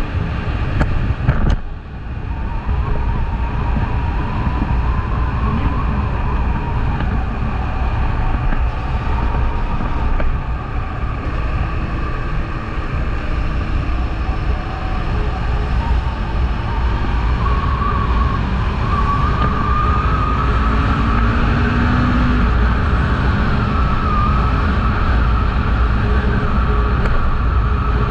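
Kawasaki Eliminator 500 parallel-twin motorcycle riding on the road, with the engine running and wind rushing over the helmet camera's microphone. A thin wavering whine sits above the rumble and climbs a little higher in pitch in the second half.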